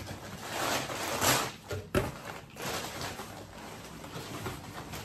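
Cardboard shipping box and packing paper being handled: rustling and scraping, with a sharp knock about two seconds in.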